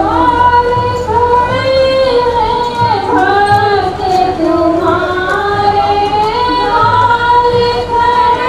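A woman singing a devotional song (bhajan) in long held notes that slide from one pitch to the next, over a low steady hum.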